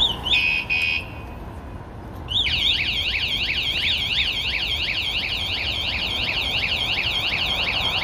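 Two short electronic beeps, then about two and a half seconds in a Wsdcam 113 dB anti-theft bicycle alarm goes off. Its loud electronic siren warbles rapidly up and down, about three to four sweeps a second.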